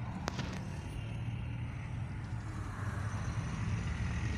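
A car's engine and road noise heard from inside the cabin while driving, a steady low hum. There is a single short click about a quarter second in.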